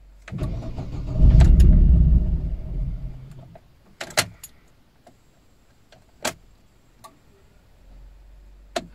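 Cold start of an Opel Corsa D OPC's 1.6-litre turbo four-cylinder (Z16LER) at −8 °C. The starter cranks and the engine fires about a second in, runs loudly for under two seconds, then dies away. Afterwards come sharp clicks of the ignition key being turned, with keys jangling.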